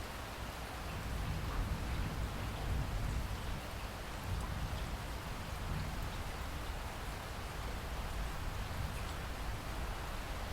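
Steady rain falling, a hiss of drops over a deep low rumble, growing a little louder about a second in.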